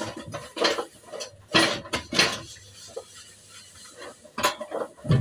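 Stainless steel kitchen pots and containers clanking and clattering as they are handled and moved, with several sharp metal knocks.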